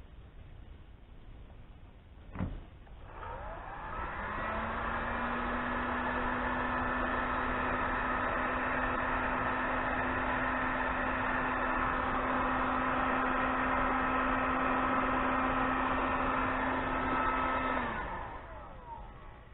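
Electric heat gun switched on with a click, its fan spinning up over a second or so to a steady whirring hum while it shrinks heat-shrink tubing over wire connectors. About fourteen seconds later it is switched off and winds down near the end.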